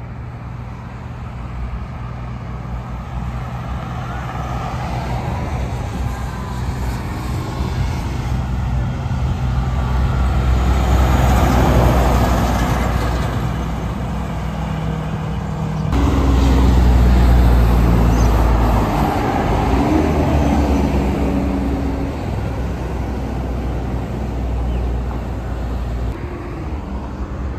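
Heavy trucks passing on a highway: a low diesel engine drone with tyre noise, swelling to a loud pass about twelve seconds in, then a second loud pass that starts abruptly a few seconds later and fades.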